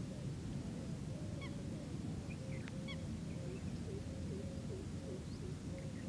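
Distant waterbirds calling, with goose-like honking notes and scattered short high chirps, over a steady low rumble.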